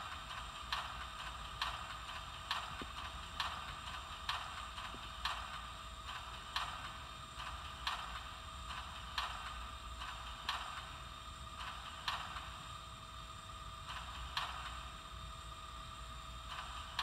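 Idle sound of a Norfolk and Western 2-8-0 steam locomotive from an HO model's Soundtraxx Tsunami 2 sound decoder: a steady whine and hiss with the air pump knocking about once a second.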